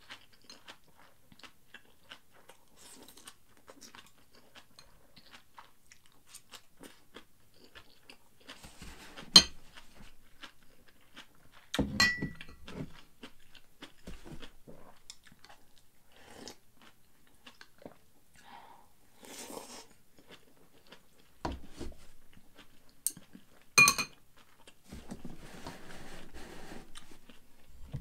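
A person chewing a mouthful of fried rice close to the microphone, with small clicks of chopsticks and a few sharp, ringing clinks of chopsticks against a ceramic bowl, the loudest about nine, twelve and twenty-four seconds in.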